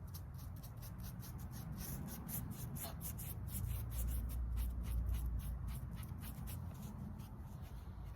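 End-grain sealer being spread onto the cut end of a Southern Yellow Pine board: a quick run of short scratchy strokes, about three or four a second. A low rumble swells under them in the middle.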